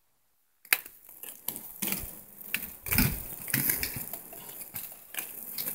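Dead silence for under a second, then irregular clicks, knocks and rustling from a handheld camera being handled and swung about.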